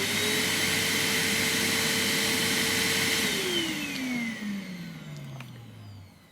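Henry vacuum cleaner motor running at full speed with a steady whine. About three seconds in it is switched off, and it winds down over the next three seconds, its pitch falling away.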